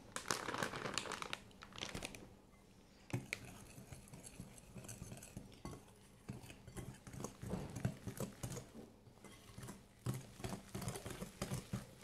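A plastic bag of cake mix crinkles during the first two seconds. After a short pause, a wire whisk stirs and scrapes dry powdered mix in a glass bowl with irregular strokes.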